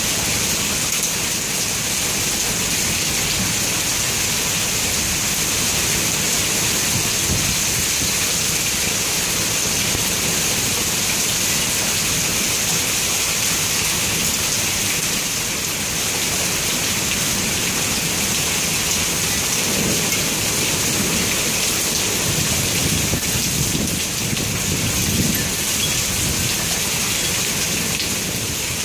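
Heavy rain falling steadily in a summer thunderstorm, with low rumbles of thunder swelling about two-thirds of the way through.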